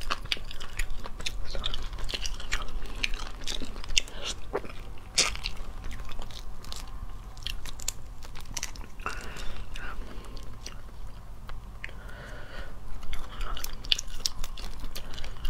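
Cooked crayfish shells cracking and crackling as they are peeled apart by hand, mixed with chewing; a dense, irregular run of sharp crackles and clicks.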